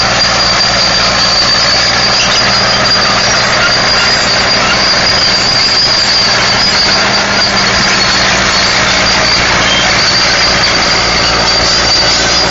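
Caterpillar 955H track loader's diesel engine running steadily under load while the crawler pushes into and over trees, with a constant high whine over the engine noise.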